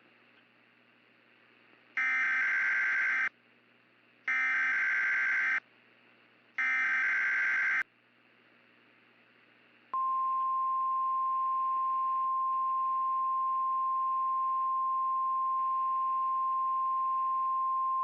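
Emergency Alert System SAME header: three warbling digital data bursts about a second long each, followed by the steady single-pitch NOAA Weather Radio 1050 Hz warning alarm tone held for about eight seconds. Together they signal the start of a new warning broadcast, here a tornado warning.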